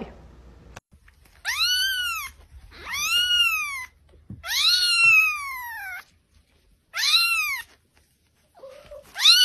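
Young kitten meowing: five high-pitched calls, each rising then falling in pitch, the last starting near the end.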